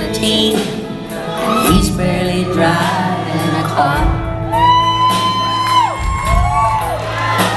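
Live country band playing a slow song's instrumental intro in a large hall, with held melodic notes over a steady bass, and some shouts and whoops from the audience.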